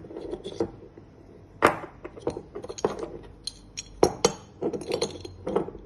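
Small metal lock parts clicking and clinking as the cylinder of a Mercedes W164 door lock is pulled out of its core and handled, in a string of irregular sharp clicks with louder knocks about a second and a half in and about four seconds in.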